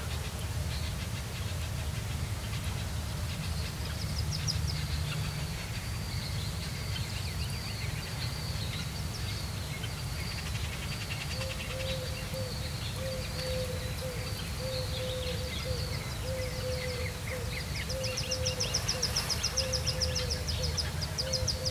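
Ducklings in a tree-cavity nest peeping over and over in high, thin notes, with a fast run of peeps near the end. From about halfway through, a lower duck call repeats a little more than once a second. A steady low rumble runs underneath.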